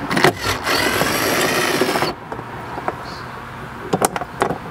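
Cordless driver with a Phillips bit running for about two seconds as it backs out a screw, then stopping abruptly. A few light clicks of plastic parts being handled near the end.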